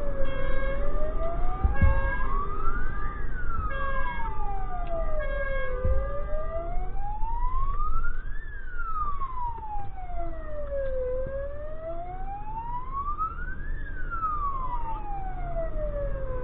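Fire engine's siren in a slow wail, rising and falling about every five seconds, heard from inside the truck's cab over the engine's steady rumble.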